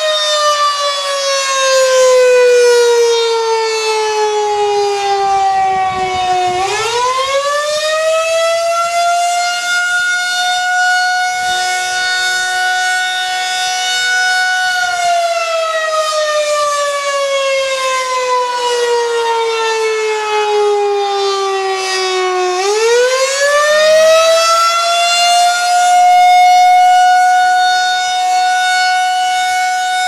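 Federal Signal 2001-SRNB electromechanical rotating siren sounding a wail on test, its horn turning on the pole. The pitch slides slowly down, rises quickly, holds, then slides down again and climbs once more.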